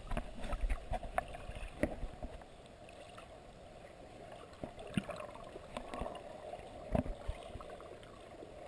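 Muffled water sound heard with the camera held under water in a murky stream: a dull steady wash with bubbling and short knocks, busier in the first two seconds, then a few knocks near the end.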